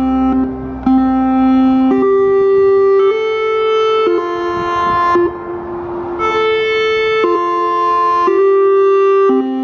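Federal Signal Modulator 6048 electronic siren playing its all-clear chimes: a slow melody of steady electronic tones, about one note a second, stepping between a few pitches. The chimes signal the all-clear that closes the siren test.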